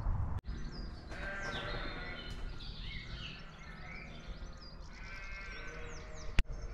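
Two long, wavering bleating calls, one about a second in and one about five seconds in, over birdsong, with a sharp click near the end.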